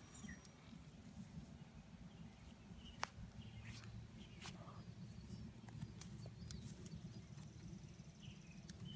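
Near-quiet outdoor pasture ambience: a faint steady low rumble, scattered small clicks with one sharper tick about three seconds in, and a few faint high chirps.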